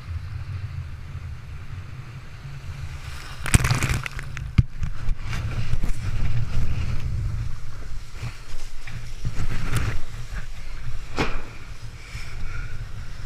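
Wind buffeting an action camera's microphone as a low, steady rumble while windsurfing through choppy water, with sharp knocks and splashes of water against the board and camera, the loudest about three and a half seconds in and again near eleven seconds.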